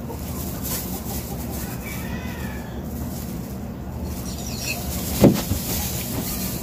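Steady low background hum, with a faint chirp around two seconds in and one short knock about five seconds in.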